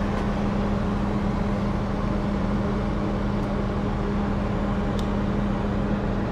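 Steady drone of idling truck engines, one unchanging low hum, with a faint click about five seconds in.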